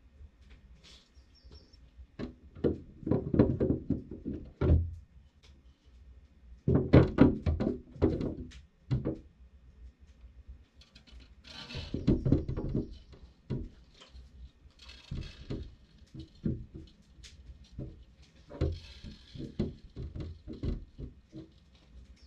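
Black sunflower seeds poured from a plastic jug, rattling into a clear plastic window bird feeder in several bursts of rapid clicks, with knocks as the feeder tray is handled.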